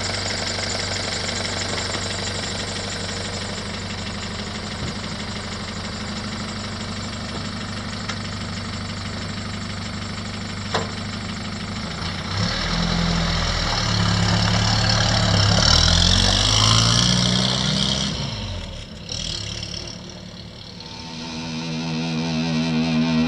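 1962 Willys CJ5's freshly rebuilt F134 four-cylinder F-head engine idling steadily. About halfway through, it revs up as the Jeep pulls away, is loudest as it passes close, then fades into the distance. Music fades in near the end.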